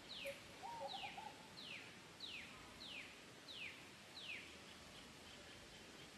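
A bird calling a series of seven evenly spaced, downward-slurred whistled notes, about three every two seconds, then stopping. A brief lower warble comes about half a second in, over faint steady outdoor background sound.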